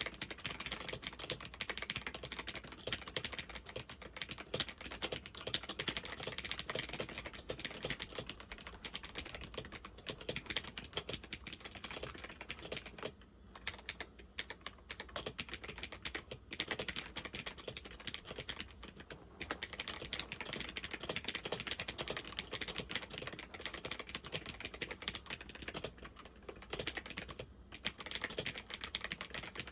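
Fast, continuous typing on a Zenith ZFL-181-93 laptop keyboard with Alps SKFL switches and doubleshot keycaps, a dense run of keystroke clicks with a couple of short pauses midway. Many of the switches are worn and bind.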